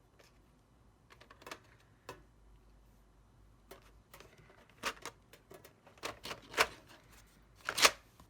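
Irregular clicks and light taps of colored pencils being handled on a desk, sparse at first and louder near the end.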